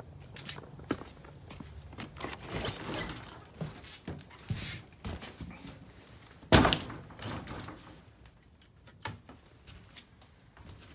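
An old wooden barn door being handled and opened, with knocks and rattles, then shutting with a loud thud about six and a half seconds in. A few lighter knocks follow.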